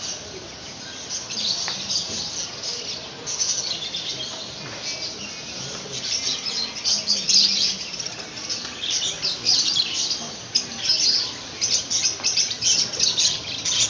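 A flock of small caged pet-shop birds chirping and tweeting all at once, a continuous chatter of quick high chirps that grows denser and louder about halfway through.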